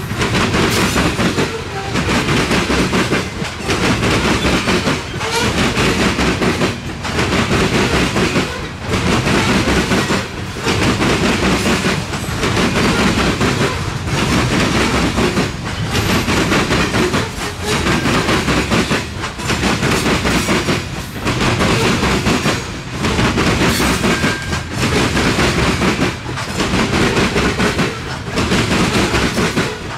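Freight cars rolling past at a steady speed, their steel wheels rumbling and clattering on the rails. The noise dips briefly about every two seconds as each gap between cars goes by.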